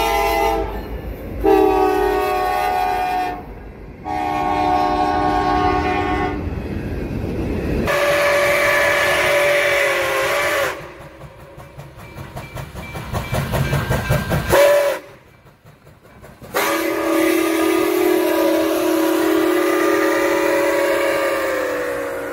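A string of short cut-together train clips: diesel locomotive horn blasts first, then steam locomotive chime whistle blasts. Between them come a few seconds of rhythmic clatter from a passing train. The last whistle is held for about six seconds.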